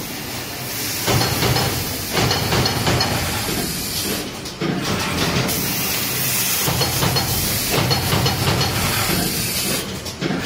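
Automated card punching machine running: a steady mechanical din with hissing, easing briefly twice.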